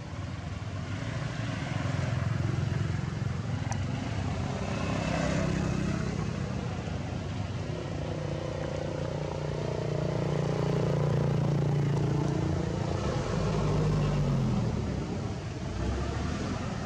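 Low engine noise from motor vehicles, swelling and fading several times; one engine's pitch drops about fourteen seconds in.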